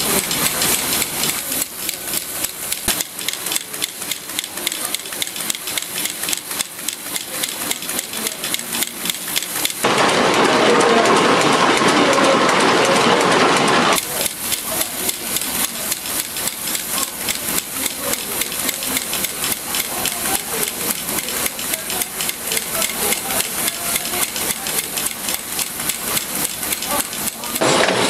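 Automatic screw-making machines running at speed: a rapid, even metallic clatter of repeated strokes as screw blanks are fed along the rail and formed. From about ten to fourteen seconds in it turns louder and noisier, with a hiss over the clatter.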